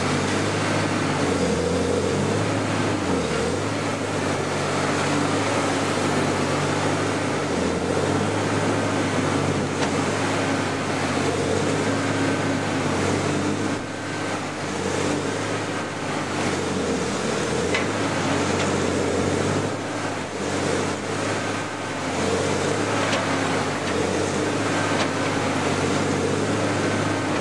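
Badger shear shredder running under load, its shafts grinding and crunching through palm tree material, over a steady low drone from the machine's drive. The grinding swells and eases a few times as the load in the hopper shifts.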